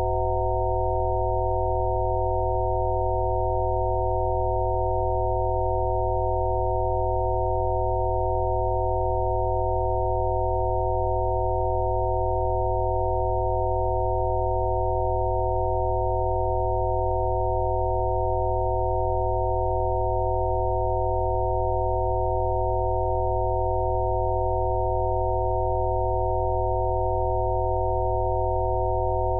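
Rife frequency sound-therapy tones: several pure electronic sine tones held together, unchanging, in the middle range with a deep steady low tone beneath.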